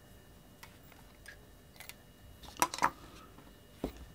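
A few light clicks and taps of two fountain pens, a Pelikan M1000 and a Montblanc 149, being handled, with a short cluster of clicks a little past halfway.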